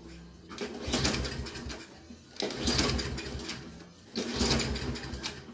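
Briggs & Stratton 163cc mower engine being pull-started on its recoil starter three times, about two seconds apart. Each pull cranks it briefly and it dies away without catching. It is a no-start, blamed on bad gas.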